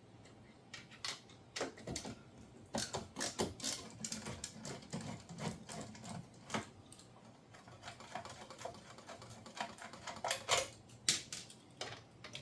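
Irregular clicks and small metallic taps, some in quick runs, of a T15 Torx bit driving out the screws that hold a dishwasher's front panel.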